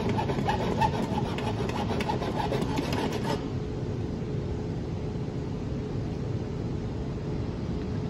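Hand file rasping in repeated short strokes across a metal pressure-washer quick-connect plug, taking off a burr raised on its edge. The filing stops about three and a half seconds in, leaving a steady low hum.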